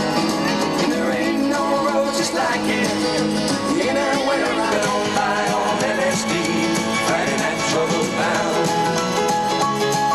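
Background music playing steadily, laid over the footage.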